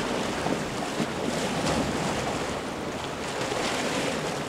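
Steady wash of sea surf against shoreline rocks, mixed with wind noise on the microphone.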